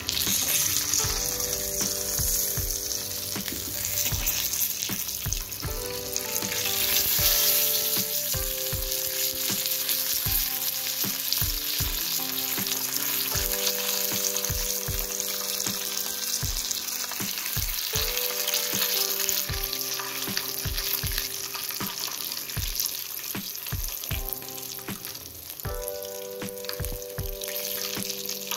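Pearl-millet roti frying in ghee on a griddle, with a steady sizzle throughout. Background music with held notes and a regular beat plays underneath.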